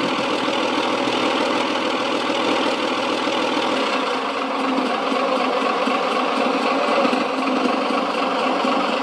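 Simulated JS-2 (IS-2) heavy tank V12 diesel engine sound from an RC tank sound unit's sound pack, idling steadily with a low, even clatter.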